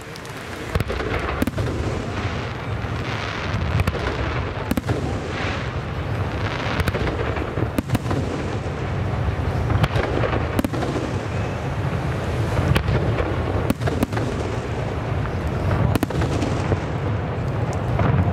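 Aerial fireworks shells bursting in a dense, continuous barrage with many sharp bangs over a steady low rumble, starting about a second in.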